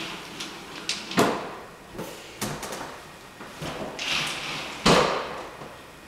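A hand truck loaded with a laundry appliance bumping down wooden stairs: a string of uneven thumps and knocks as the wheels drop from step to step. There is a short scrape just before the loudest thump, about five seconds in.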